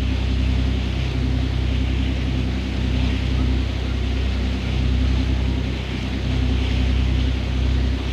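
Motorboat engine running steadily at trolling speed, with a steady hiss of water.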